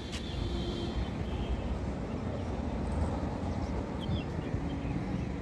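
Steady low rumble of road traffic, cars and motorbikes.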